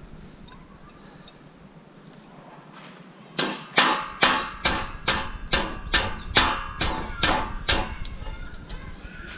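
Hammer striking metal scrap, about a dozen quick blows at an even pace of roughly two to three a second, starting about three seconds in, each with a short metallic ring.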